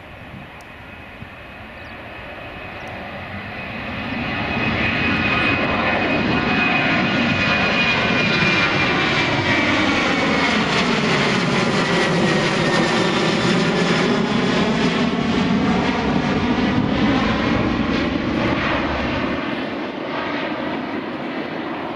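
Boeing 737 jet airliner climbing out at takeoff thrust: the engine noise swells over the first few seconds as it passes close, then holds loud with a high whine that slowly drops in pitch as it flies away, easing off near the end.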